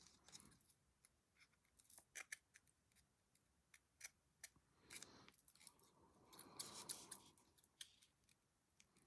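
Small scissors snipping faintly several times, with soft rustling in between.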